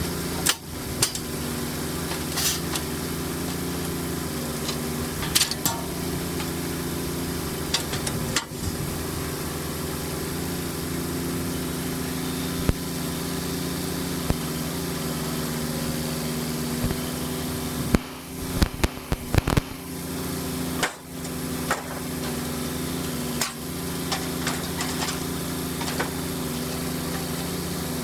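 An engine running steadily, with sharp knocks struck every few seconds and a quick cluster of them about two-thirds of the way through.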